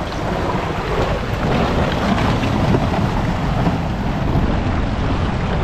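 Mercedes 4x4 driving through deep icy water, its engine running under the rush and surge of the bow wave it pushes ahead. Wind buffets the microphone.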